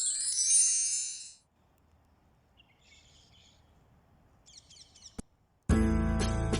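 A bright high-pitched sound for about a second and a half, then faint bird chirps, then acoustic guitar music starting near the end.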